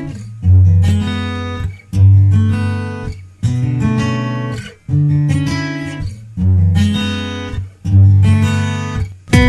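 Background music on acoustic guitar: strummed chords about every second and a half, each ringing and fading before the next.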